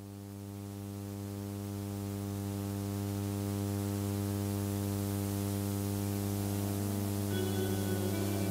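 Steady mains hum and buzz from an old Dual CV 31 amplifier, swelling over the first few seconds and then holding steady. Faint music starts to come through near the end.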